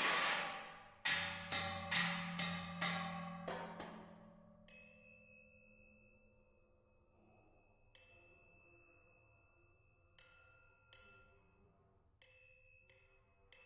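Contemporary chamber music for solo percussion and ensemble: a quick run of sharp percussion strikes over a low held tone in the first few seconds, then sparse metallic strikes that each leave high, ringing tones.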